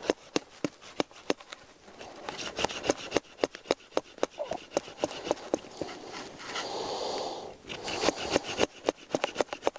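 Small hand saw cutting through a thin alder stick in quick back-and-forth strokes, each stroke a short rasping scrape of teeth on wood, about three a second, with a few longer strokes near the end.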